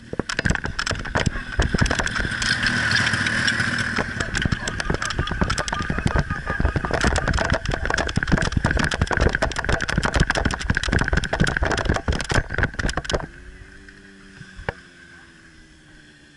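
Rapid footsteps and wind buffeting on a helmet-mounted camera during a sprint, over the steady drone of a portable fire pump's engine. The footsteps and buffeting stop about 13 seconds in, leaving the quieter engine drone.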